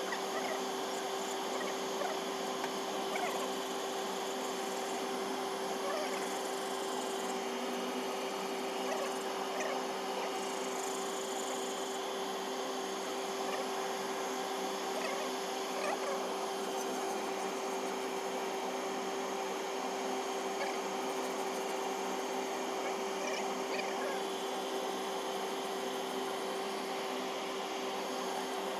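A steady mechanical hum with a constant tone over a hiss, holding an even level, with faint short chirps over it now and then.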